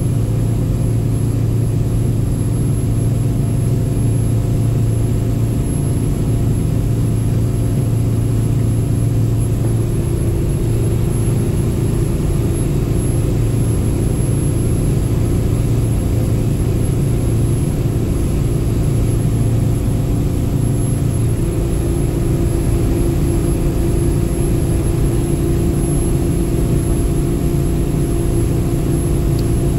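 Boat engine running steadily under way, heard at the helm, while the owner hunts a vibration that changes with the trim-tab setting. About two-thirds of the way in, the drone's low hum drops and a higher tone comes up.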